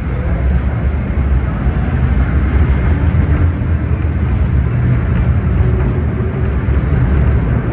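MTR Tsuen Wan line M-train, a Metro-Cammell electric multiple unit, pulling out of an underground platform, its carriages passing close by with a loud, steady low rumble of wheels on rails.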